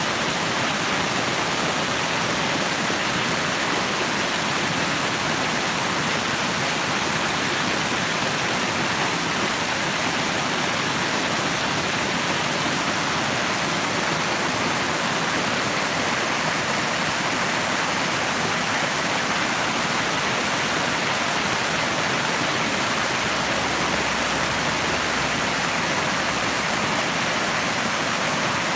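Running water rushing steadily, an even hiss with no breaks, like a waterfall or fast stream.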